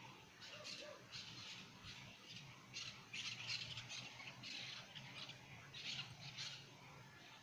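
Faint birds squawking and chirping in short, irregular bursts.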